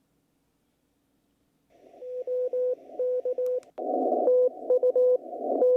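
Morse code (CW) received on 20 meters by an Icom IC-7300 and played through a BenQ treVolo speaker in its unfiltered music mode. A single steady tone keys on and off in dots and dashes over band hiss, starting about two seconds in. There is a short surge of louder static about four seconds in.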